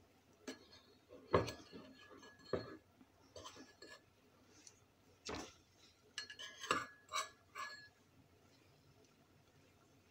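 A utensil knocking and scraping irregularly against a stainless steel pot while mole paste is stirred and broken up in hot chicken broth, with short clinks coming in a quick cluster near the end.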